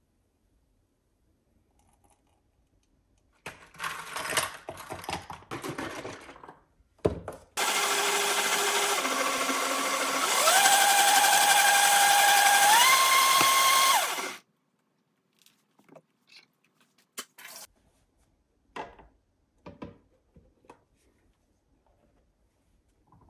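An electric motor runs loudly for about seven seconds, its whine shifting in pitch and then stepping up twice. A few seconds of irregular rattling and clattering come before it. Faint scattered clicks follow it.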